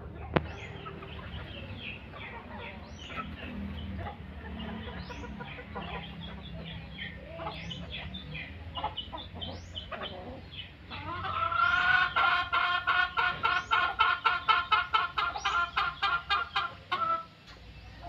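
Small birds chirping, with a sharp click just after the start; then, about eleven seconds in, a chicken breaks into a loud run of rapid clucks, several a second, lasting some six seconds before stopping.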